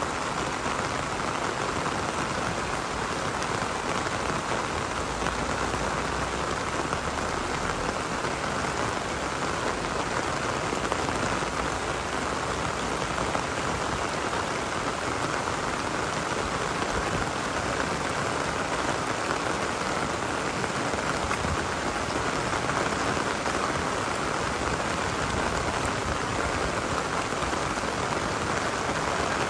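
Rain falling steadily: an even, unbroken patter of drops on surfaces.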